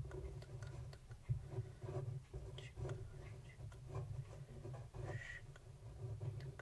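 Fine-tipped pen scratching on paper in many short strokes, close to the microphone.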